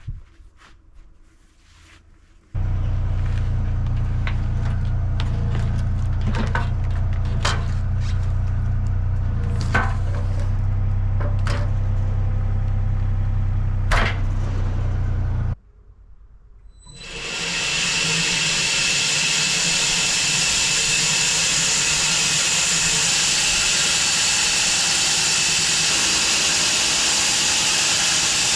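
A portable band sawmill's machinery runs with a steady low drone and scattered knocks of wood as the log is rolled over onto its flat. It cuts off about 15 seconds in. About a second later a steady hissing whine starts and holds as the mill begins slabbing the log.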